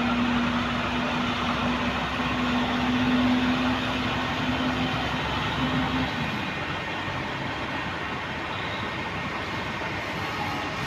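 Heavy vehicle engine running steadily with a dense rumble. A single steady humming tone is held over it for about six seconds and then stops.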